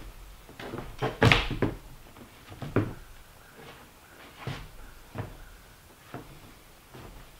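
A series of irregular knocks and thuds, a dozen or so, spaced unevenly; the loudest comes about a second in.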